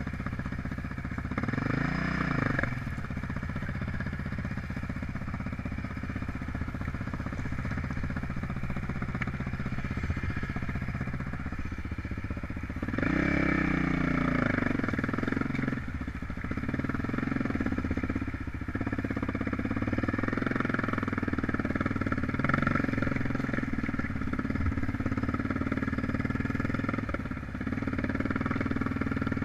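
Hillclimb motorcycle engine running, revved hard twice with a rise and fall in pitch, about two seconds in and again near the middle, over a steady engine drone.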